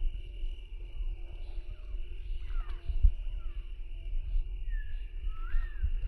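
A steady insect drone over wind rumbling on the microphone, with a few short bird chirps, including two sliding whistled notes near the end.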